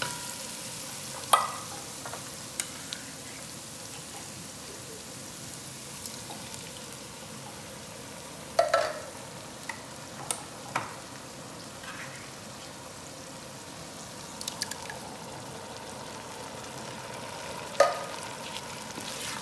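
Onion, garlic and ginger sizzling steadily in olive oil in a Dutch oven. Now and then a sharp knock or clack sounds as chopped tomatoes are tipped in from a can and stirred with a wooden spoon.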